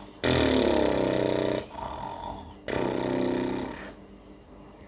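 A grandfather's exaggerated, theatrical sneeze, voiced loud and drawn out in two parts of about a second each with a short gap between.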